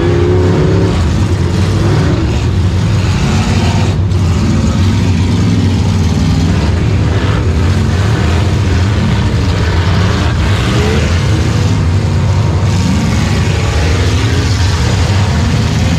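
Demolition derby car's engine running loud and steady, heard from inside the gutted cabin.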